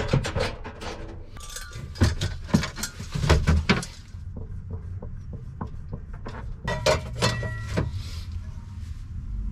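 Kitchen items being handled and set down: scattered clinks, knocks and clatter, a few with a brief ring, over a low steady hum.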